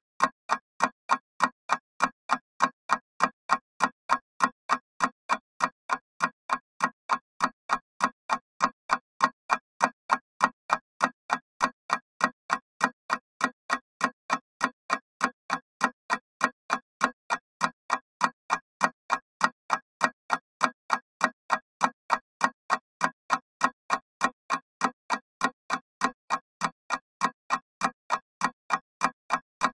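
Mechanical clock ticking steadily: sharp, evenly spaced ticks, several a second, with quiet gaps between them.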